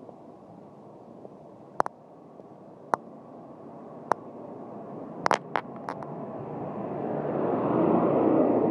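A necklace pendant tapping against the recording device: sharp taps about once a second, then a quick cluster of them around five seconds in. Over the last few seconds a golf cart comes by close, its noise growing louder.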